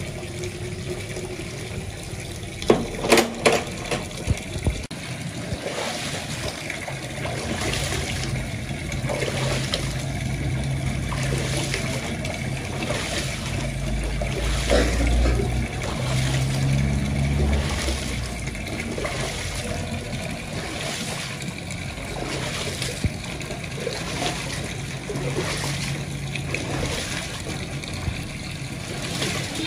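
Rice being washed by hand in a large metal tub of water: water poured off at first, then sloshing and splashing in a rhythm of strokes about once a second. There are a few sharp knocks on the metal tub about three seconds in, and a low rumble about halfway through.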